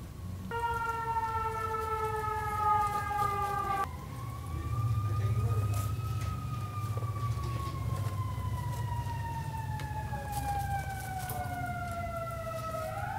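Emergency vehicle siren wailing, its pitch sliding slowly down, then up, then down for several seconds, and rising again near the end, over a steady low hum.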